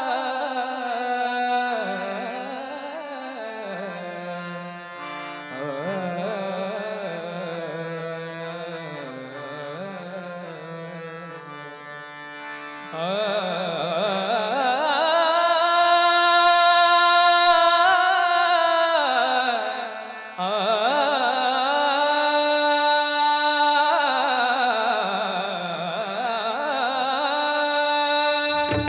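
Devotional bhajan music: a wordless sung alaap in long held notes that glide up and down, over instrumental accompaniment with tabla. It climbs to a loud held high passage about halfway through.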